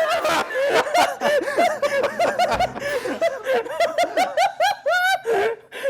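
People laughing hard, a quick run of giggles and chuckles that rise and fall several times a second.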